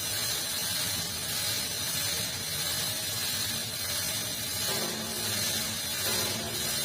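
Machinery running with a steady hiss.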